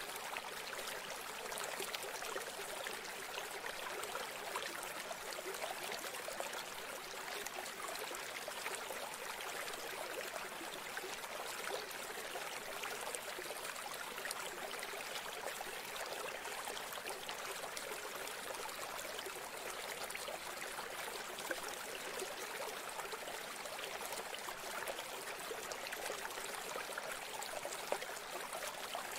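Steady rushing hiss of flowing water, like a stream, even throughout, with almost no low end.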